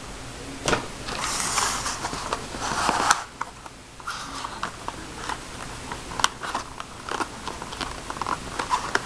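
Packaging being handled and opened: rustling and crinkling, loudest a second or two in, with scattered clicks and knocks.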